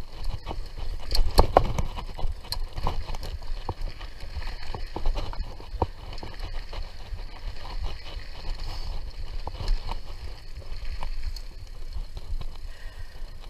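Mountain bike riding over a dirt trail: wind rumble on the microphone, with frequent irregular clicks and rattles from the bike jolting over bumps, the heaviest jolts about one to two seconds in.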